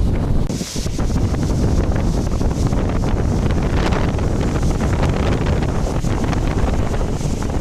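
Strong wind buffeting the microphone: a heavy, steady low rumble with brief hissy gusts.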